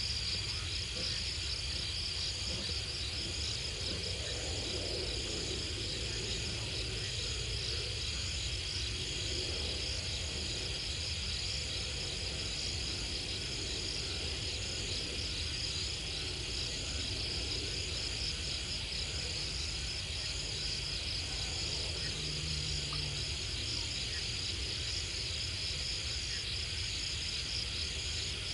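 Night chorus of crickets and other insects: a steady, high-pitched pulsing trill that holds unchanged throughout, over a low steady hum.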